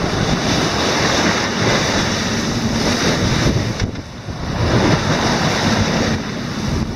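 Wind buffeting the microphone over the rush of waves and spray along the hull of a sailing yacht in rough seas. It surges and eases, with a brief lull about four seconds in.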